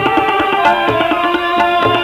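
Background music: a melodic instrument playing held and sliding notes over a steady, even drum beat.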